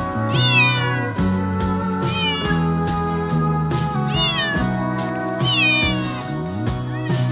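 A hungry young tabby stray cat meowing over and over, each meow falling in pitch, about one every one and a half to two seconds. Background music with a steady beat plays under it.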